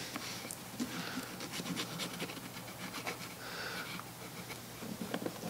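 Pencil rubbing over blue painter's tape laid across a gap in old wood veneer, tracing the edge of the gap to make a template: faint, light scratching strokes.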